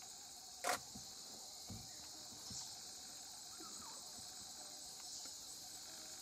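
Steady high-pitched insect chorus, with one short sharp knock about a second in.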